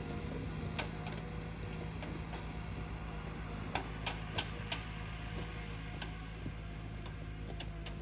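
Forwarder's diesel engine running steadily as the loaded machine travels on its tracked bogies, with scattered sharp clicks and clanks, a cluster of them about four seconds in.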